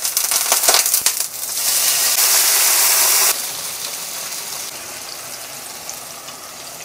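Water poured into a hot, oiled frying pan of gyoza: a crackling spatter, then a loud burst of hissing steam that cuts off suddenly after about three seconds. After that come steadier, quieter sizzling from the pan and the oil of a pot of deep-frying gyoza.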